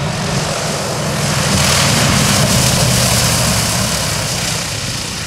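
Douglas C-47 Skytrain's twin Pratt & Whitney R-1830 radial engines and propellers running at high power as the plane passes close by, a low drone with a rushing hiss that swells to its loudest about halfway through and then fades as it moves away.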